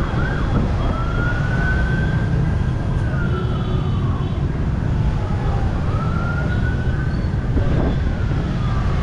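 Emergency vehicle siren wailing in two slow sweeps, each rising and then falling in pitch, over a steady low rumble of street traffic.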